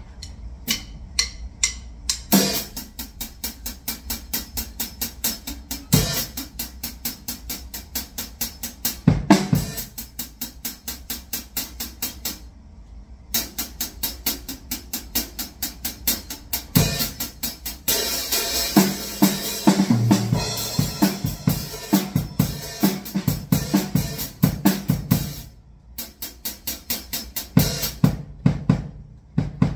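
Acoustic drum kit played in a steady groove: quick, even strokes on the hi-hat over kick and snare, with louder crash accents every few seconds. The playing stops briefly twice, about halfway through and near the end.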